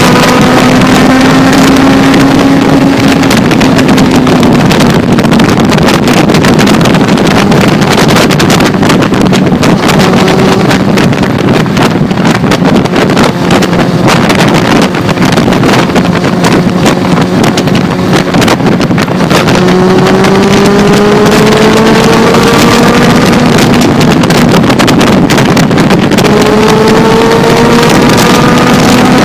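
Suzuki Bandit 600's inline-four engine through a D&D slip-on exhaust, heard while riding. The engine note climbs under acceleration at the start, holds steady at cruise through the middle, then climbs again twice near the end. Heavy wind noise on the microphone runs under it.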